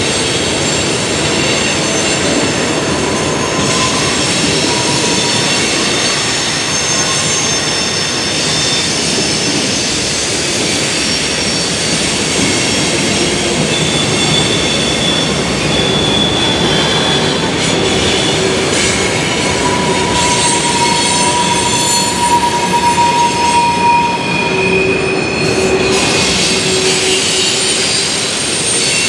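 Freight train rolling past, a steady rumble of wheels on rail with high-pitched wheel squeals that come and go at several pitches.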